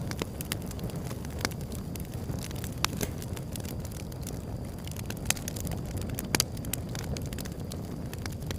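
Wood fire burning, with irregular sharp crackles and pops over a steady low rumble; the loudest pops come a little past halfway.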